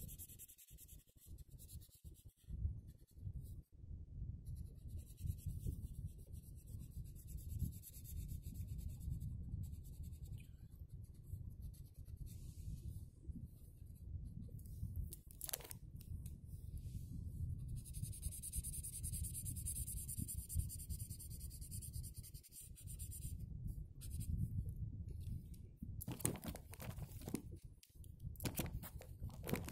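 Felt-tip marker scribbling back and forth on paper while colouring in, with a low rubbing noise from the hand moving on the page. A few sharp clicks come near the end.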